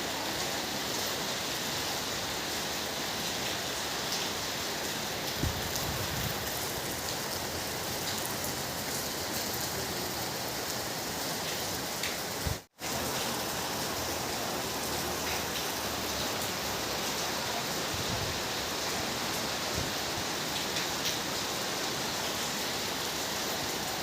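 Steady rain falling, an even hiss with scattered drop ticks. The sound cuts out for a split second about halfway through.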